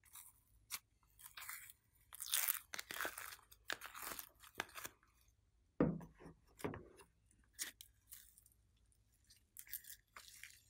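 Hands squishing, pressing and stretching glitter slime and soft clay, giving irregular bursts of sticky squishing and crackling, with a sharper knock about six seconds in.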